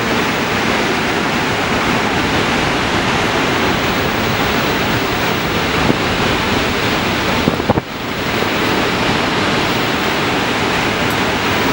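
Steady, loud rushing noise of Niagara Falls' falling water and the churning river below. A couple of small knocks and a brief dip in the noise come about two-thirds of the way through.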